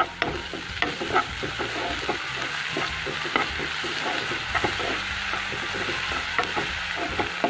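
Onions, whole spices and ginger-garlic paste sizzling in hot oil in a nonstick wok, stirred with a spatula that scrapes and knocks against the pan many times, over a steady frying hiss.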